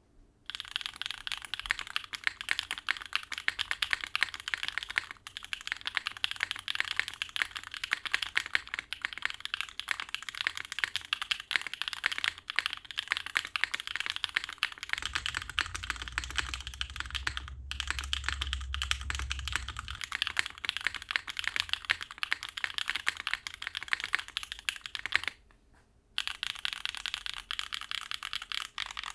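Custom 60% mechanical keyboard with lubed Kailh BCP linear switches in a top-mounted aluminum plate and GMK keycaps, typed on quickly and continuously in a clacky stream of keystrokes. The typing pauses briefly near the end.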